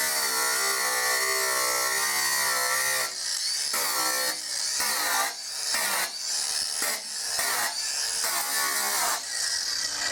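Small handheld power grinder with a grinding disc, engraving letters into a piece of steel. A steady motor whine with the disc rubbing on the metal for about three seconds, then broken into short strokes as the letters are cut.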